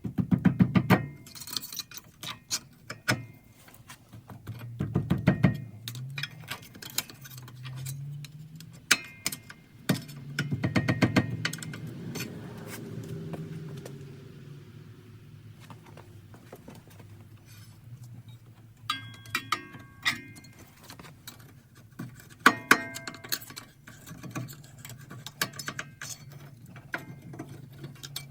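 Irregular clusters of sharp metallic clinks, rattles and scrapes from tools and old rear brake pads being worked out of a car's brake caliper bracket, with a few brief ringing chinks of metal.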